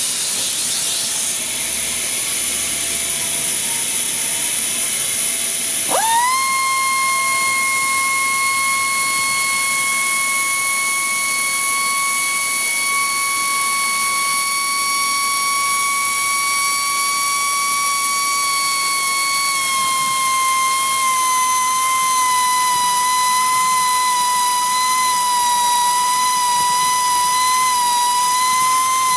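Gison GPD-231 air drilling machine: a steady hiss of compressed air, then about six seconds in the pneumatic motor spins up with a sharp rising whine and runs at a steady high pitch. Later the whine drops slightly and wavers as the bit cuts into the wall during wet drilling.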